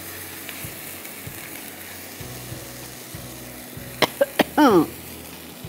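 Milk-and-cream sauce sizzling and bubbling in a non-stick wok on a gas flame as it is stirred with a spatula. About four seconds in there are a few sharp clicks and a short cough, the loudest sounds here.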